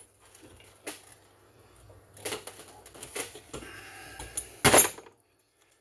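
Pliers and small metal parts clicking and clinking against a Stihl 031AV chainsaw's housing while the ignition switch is worked loose. A few separate clicks are followed by a louder clatter near the end, which then cuts off suddenly.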